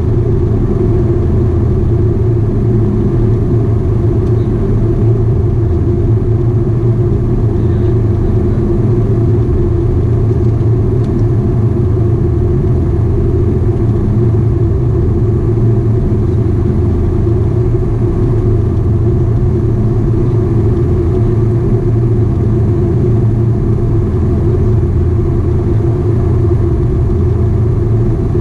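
Antonov An-24's Ivchenko AI-24 turboprop engines and propellers heard from inside the passenger cabin: a loud, steady drone with several low humming tones, on the descent towards landing.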